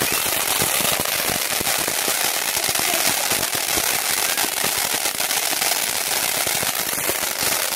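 Ground fountain firework spraying sparks: a steady, loud hiss with dense crackling throughout.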